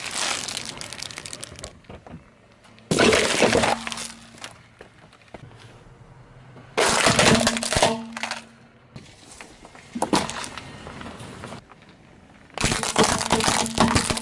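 Car tyre rolling over and crushing plastic toys and other objects on asphalt, with loud cracking and crunching as they break, in five separate bursts a few seconds apart.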